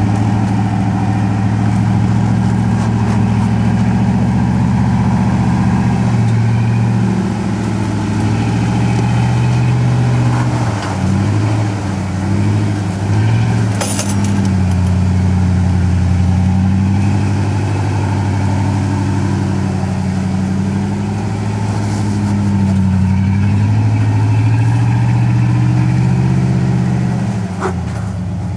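Rock crawler buggy's engine running under load as it crawls up a steep rock ledge, its pitch rising and falling with the throttle. A single sharp knock about halfway through.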